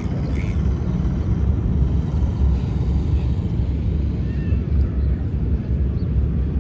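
A steady low outdoor rumble throughout, with a couple of faint, short meows from a stray cat.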